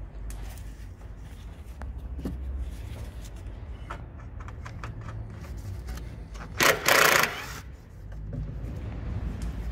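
Cordless drill-driver undoing the T25 Torx screws of a plastic wheel-arch liner, with clicks of handling and a loud, short burst about seven seconds in.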